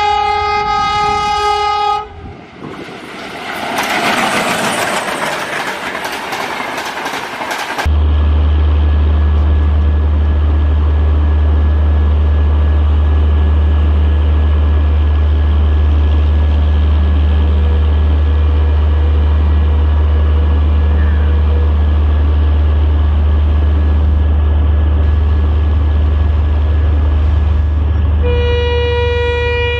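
Diesel locomotive horn held for about two seconds, then a train rushing past with clattering noise. After about eight seconds, the deep steady throb of diesel locomotive engines takes over, from a pair of WDG4-class locomotives approaching on the next track. Near the end a second locomotive horn sounds.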